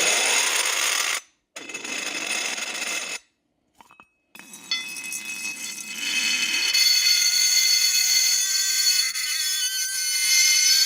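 Metal cup resting on dry ice, ringing and squealing with several steady high tones at once as the sublimating gas makes the metal vibrate. The sound cuts out briefly about a second in and again around three to four seconds in, and the tones shift in pitch as it resumes.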